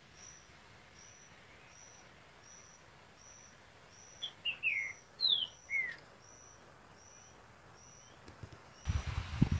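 Songbird singing a short phrase of falling whistled notes about four seconds in, over a thin high note repeated a little more than once a second. A low rumble sets in near the end.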